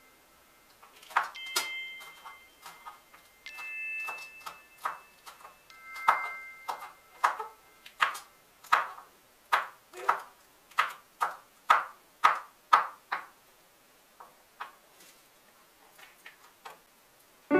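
Kitchen knife chopping green chillies on a wooden cutting board: a series of sharp knocks, irregular at first, then settling into a steady rhythm of about two a second, with a few faint taps near the end.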